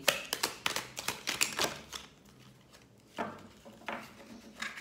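A deck of oracle cards being handled: a rapid run of sharp clicks for about two seconds, then a few softer rustles and taps as a card is laid on the cloth.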